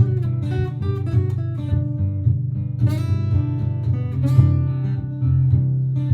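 Martin GPCPA4 acoustic-electric guitar played over a looped guitar backing from a looper pedal: a repeating low accompaniment with plucked notes and strummed chords on top, including strong strums about three seconds in and again a second later.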